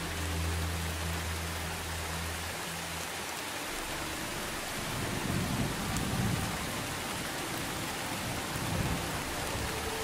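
Steady rain falling, with low rolling rumbles of thunder about five seconds in and again near the end.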